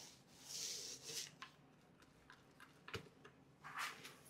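Small paint roller loaded with thinned marble-effect paste rubbing over a rough textured wall, faint: one stroke about half a second in, a few light clicks in the middle, and another stroke near the end.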